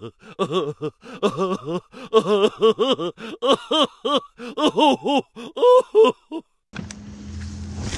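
A voice making a quick run of rising-and-falling laugh-like cries, about three a second, which cuts off suddenly near the end. A steady low boat hum then comes in.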